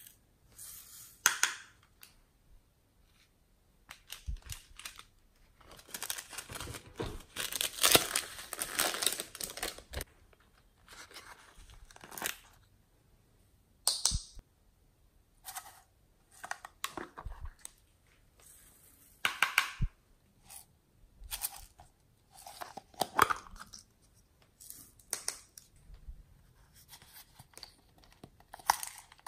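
Close-up handling of slime add-ins: a run of separate crackles, taps and rustles from plastic containers and squeeze bottles, and glitter and sequins being sprinkled onto a tray of slime. A longer stretch of rustling about six to ten seconds in.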